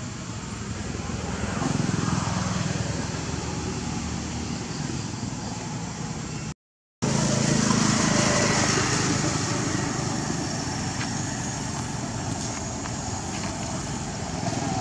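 Steady outdoor background noise with a low hum, which drops out completely for about half a second near the middle.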